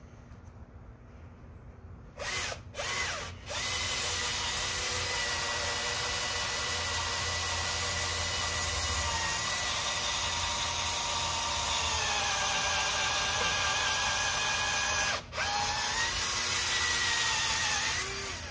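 Power drill running: two short bursts, then a long steady run with a brief stop about three-quarters of the way through, its pitch dropping a little partway as it comes under more load.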